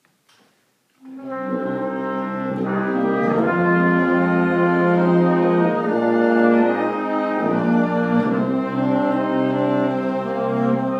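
Small instrumental ensemble begins playing about a second in, sustained chords that move from one to the next every second or two.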